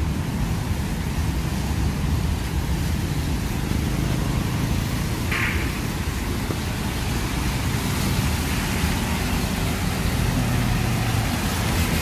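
Rain and traffic on a wet street: a steady hiss of rain and tyres on wet road over a low rumble of vehicle engines. A short high-pitched chirp sounds about five seconds in.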